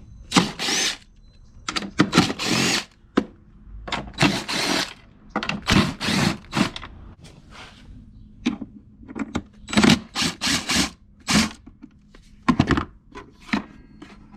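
Power drill/driver running in a dozen or so short bursts, some spinning up in pitch, backing out the scooter's body bolts and screws.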